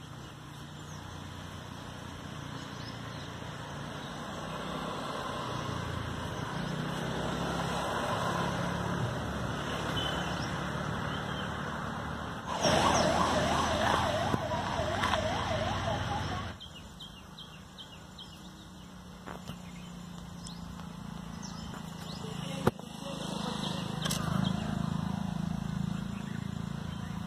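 A rapidly warbling, siren-like tone for about four seconds in the middle, over a low steady hum.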